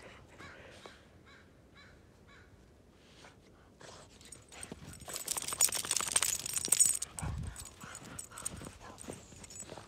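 Boston terrier snuffling with its nose in the snow, a few short sniffs, then pushing its face through the snow with a dense crunching for about two seconds in the middle. A short low thump follows the crunching.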